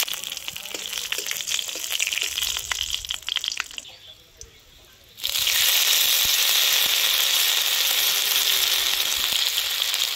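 Hot oil in an iron kadai sizzling around dried red chillies, bay leaf and whole spices, with many sharp crackles and pops. About five seconds in, after a brief quiet gap, a louder steady sizzle as ginger paste goes into the oil.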